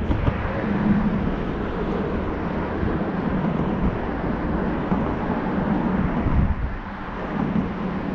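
Steady engine rumble with wind noise on the microphone; a low hum swells and fades a few times.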